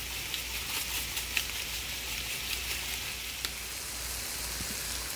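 Diced potatoes and peppers sizzling in oil in a stainless steel skillet, with many small crackles. About three and a half seconds in, water is poured into the hot pan and the crackling gives way to a smoother hiss that fades.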